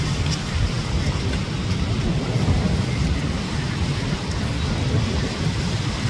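Waves breaking in the surf, with wind rumbling on the microphone: a steady roar of noise, heaviest in the low end.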